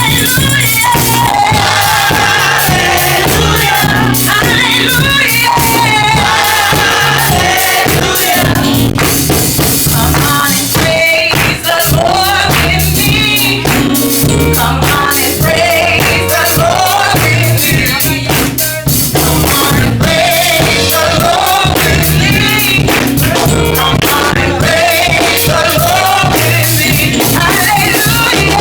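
Live gospel praise music: a choir singing over a band with drums and tambourine.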